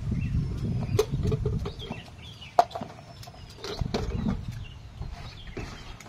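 Open-air village ambience: a low rumble like wind on the microphone, faint bird chirps, and a few sharp clicks, the loudest about two and a half seconds in.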